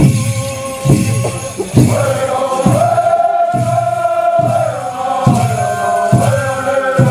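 A drum beats a slow, steady pulse, a little faster than one stroke a second, for a Pueblo deer dance song. About two seconds in, a men's chorus joins, chanting in long held notes over the drum.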